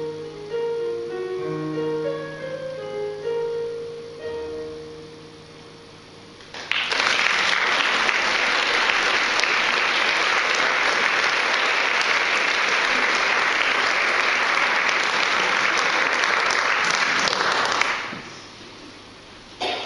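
The song's closing notes on keyboard fade away, then the audience applauds steadily for about eleven seconds before the clapping stops fairly sharply.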